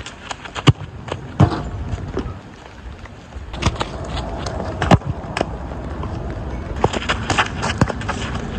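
Football being kicked on wet artificial turf: several sharp thumps of a boot striking the ball amid quicker footfalls of a run-up. A steady low rumble sets in about three seconds in.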